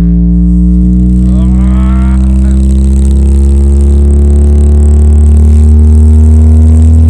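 Subwoofer playing a loud, deep bass-boosted tone with strong overtones, slowly rising in pitch.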